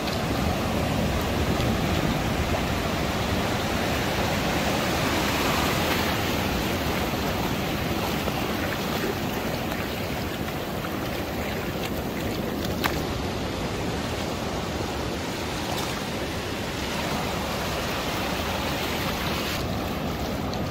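Ocean surf washing in over shallow sand at the water's edge: a steady rushing wash of water.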